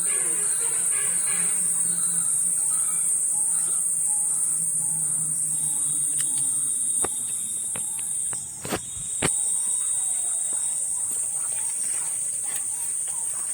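Shrill, steady insect chorus running throughout, with a few sharp clicks about seven to nine seconds in.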